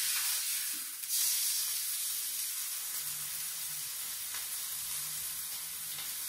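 Rack of lamb searing in a hot pan: a steady sizzle and hiss of fat and juices. The sizzle grows louder about a second in.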